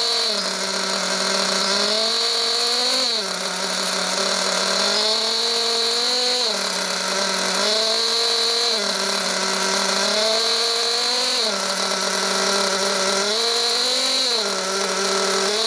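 Alpha Plus nitro glow engine of an RC buggy running on the stand during static break-in, idling with a short throttle blip about every two to three seconds, each a brief rise and fall in pitch. The gentle blips are there to build heat into the new, still-tight engine.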